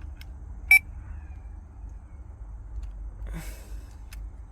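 A single short electronic beep about three-quarters of a second in, over a low steady hum, with a brief rustle a little past the middle.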